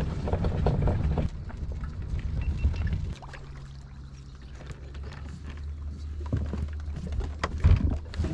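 Kayak getting under way on the water: low rumbling handling noise for about three seconds, then a steady low hum with scattered small knocks and water sounds.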